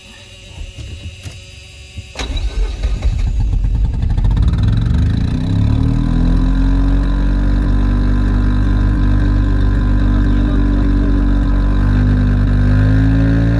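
Mazda RX-7 FC's 13B rotary engine being started: a few light clicks, then about two seconds in the starter cranks it over and the engine catches. It then runs steadily, and the revs rise slightly near the end. Heard from inside the car.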